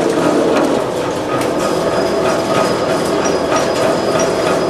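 Roll forming machine running steadily, its steel forming rollers and gears drawing a perforated metal strip through, with a continuous mechanical clatter and light regular ticks about three times a second.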